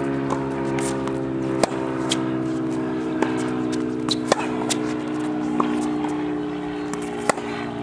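Tennis backhand groundstrokes on a hard court: sharp pops of the racket strings meeting the ball about every three seconds, with lighter ball bounces in between. A steady low hum runs underneath.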